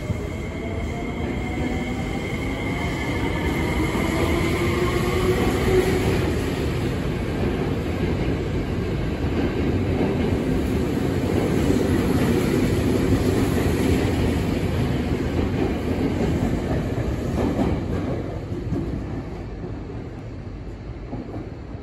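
Tokyo Metro 7000 series train pulling out of the station. Its traction motors whine, rising in pitch over the first few seconds as it accelerates. The running noise of the passing cars then builds, peaks about halfway through, and fades over the last few seconds as the train leaves.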